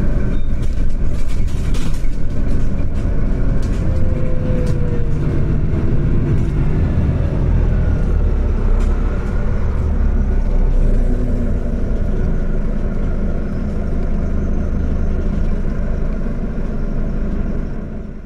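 City bus in motion heard from a passenger seat: steady engine and road rumble with light rattles and a faint whine that shifts in pitch. The sound fades out at the very end.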